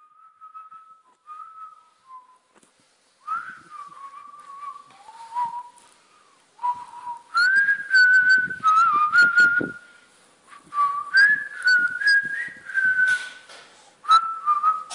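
A person whistling a tune in short phrases, the melody gliding up and down, with some clicks and rustling mixed in.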